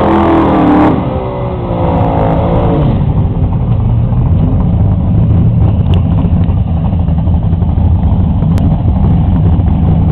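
Drag-racing car engine running loud, its pitch sweeping up and down in the first few seconds, then settling into a steady low rumble.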